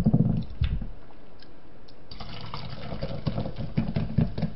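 Cola poured from a plastic bottle into a glass, a steady fizzing pour starting about two seconds in, after a few thumps as the bottle is handled.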